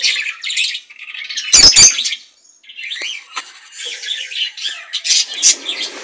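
Caged budgerigars and cockatiels chirping and chattering, with a loud burst of squawking about a second and a half in.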